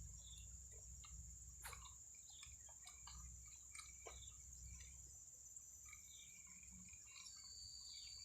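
Near silence: faint outdoor ambience with a steady high-pitched insect drone, scattered small clicks and chirps, and a low rumble.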